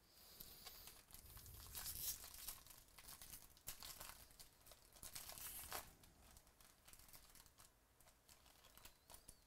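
Trading-card pack wrappers being torn open and crinkled by hand, a dense crackle for the first six seconds or so, then lighter scattered crinkles.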